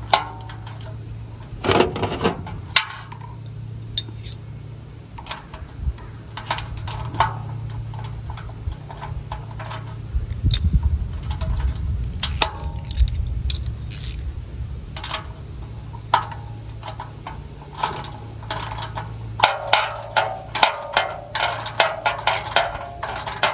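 Hand socket ratchet tightening a bolt on a metal bumper bracket, with scattered metal clinks and taps of tools and hardware and a quick run of ratchet clicks near the end. A steady low hum runs underneath.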